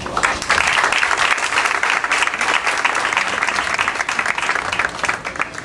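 A group of people applauding, a dense patter of many hands clapping that dies away near the end.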